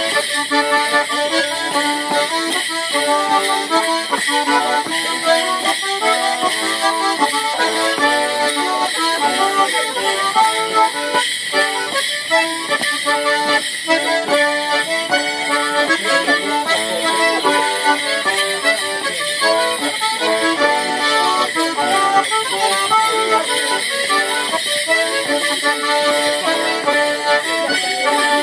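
Accordion playing a lively traditional Morris dance tune in a steady rhythm, with the jingle of the dancers' leg bells as they step and leap in time.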